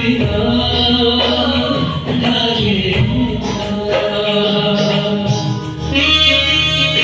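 A small band playing and singing a Chhattisgarhi song live: voices on microphones over keyboards and a hand drum, in a steady ongoing passage.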